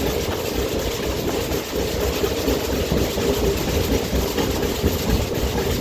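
Express train coach running at high speed, about 130 km/h: a steady rumble of wheels on rail heard from inside the coach.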